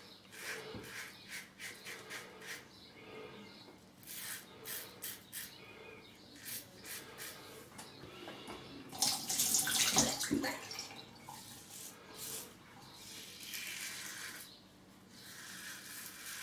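Rex Ambassador adjustable safety razor with a Gillette Red blade scraping through lathered stubble in repeated short strokes. About nine seconds in, a tap runs loudly for a second or two, with a single knock.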